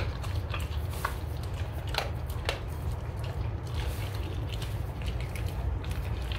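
A Rottweiler chewing a raw chicken back: wet, squishy chewing with irregular crunches of bone, over a steady low rumble.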